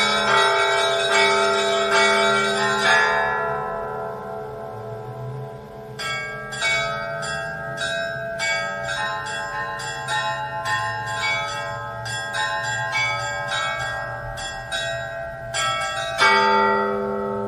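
Orthodox church bells ringing. A deep bell's ring fades over the first few seconds, then smaller bells are struck in a quick run of two or three strokes a second, and a heavy bell strike rings out again near the end.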